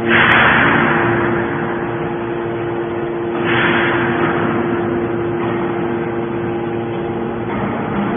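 Hydraulic scrap-metal baler running: a steady hum from its motor and pump, with a loud burst of noise at the start and another about three and a half seconds in, each fading away over about a second.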